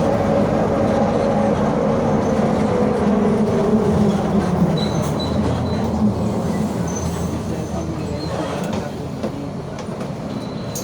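Mercedes-Benz OF 1721 bus with its OM924LA four-cylinder diesel running and its rear differential whining loudly, the whine falling in pitch over the first few seconds as the bus slows. A few short high squeaks come in around the middle, and the sound gets quieter near the end.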